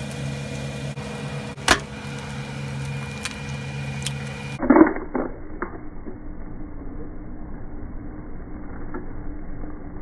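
Eggs being cracked into a frying pan: a sharp click about a second and a half in, then a short loud crackle a little before the middle, over a steady low hum.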